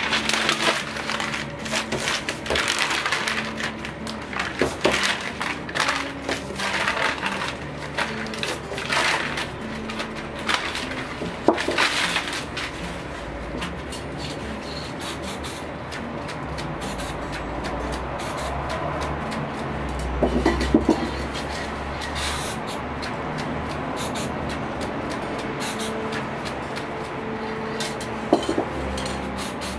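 Aerosol spray paint cans hissing in many short bursts, thickest in the first half, with a few sharp knocks and clinks of cans being handled.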